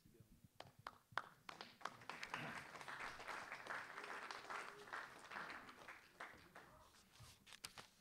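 Audience applauding: a few scattered claps at first, swelling into a full round of applause that thins out to a last few claps near the end.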